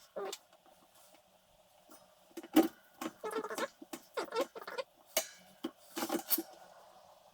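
Irregular light clinks and knocks of small metal parts being handled, the sharpest knock about two and a half seconds in.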